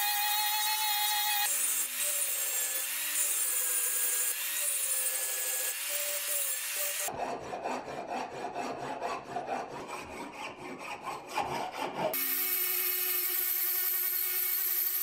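Angle grinder grinding the steel of a forged hatchet head, its pitch dipping again and again as the disc is pressed into the metal. About seven seconds in it gives way to a hand file rasping in repeated strokes inside the axe eye. The grinder starts up again about two seconds before the end.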